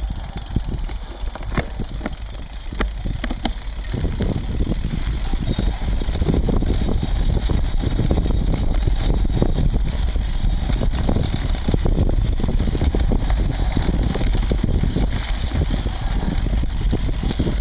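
Mountain bike riding over a grassy forest track, heard through a seatpost mount: the tyres rumble and the bike rattles and knocks. Scattered clicks and knocks for the first few seconds, then a louder, steady rumble from about four seconds in.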